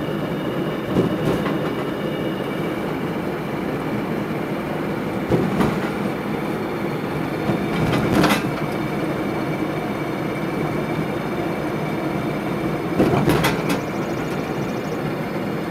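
Road noise and rattling inside the cabin of a Chevrolet Chevette being towed behind a pickup: a steady rumble with a few sharp knocks, the loudest about eight seconds in.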